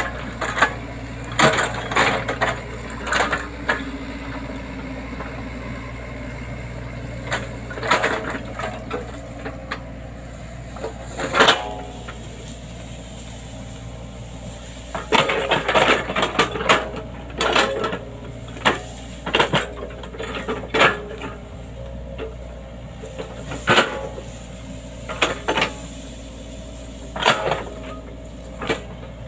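Excavator running with a steady low engine hum, over which come repeated sharp clanks and knocks, some single and some in quick clusters.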